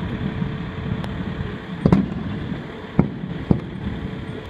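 Aerial fireworks bursting: four bangs at uneven intervals, the loudest about two seconds in, over a steady low background noise.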